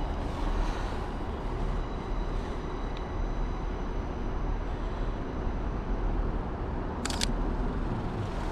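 A camera shutter firing once, a quick double click about seven seconds in, over a steady low outdoor rumble.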